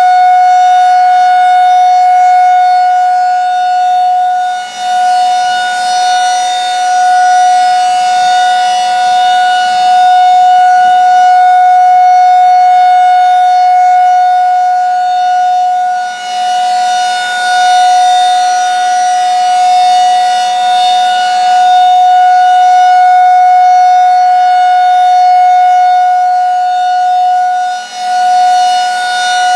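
Federal Signal 2001-SRN outdoor warning siren sounding a steady single tone at full pitch. The loudness swells and fades, dipping sharply about every twelve seconds as the rotating siren head turns toward and away.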